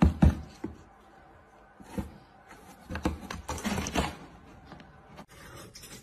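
Light knocks and scraping on a cardboard box as a cat's paw reaches out through a slot and snatches a slip of paper, with a cluster of knocks between three and four seconds in.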